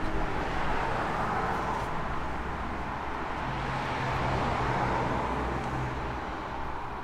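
Gas blowtorch flame burning with a steady hiss while it heats and melts wax.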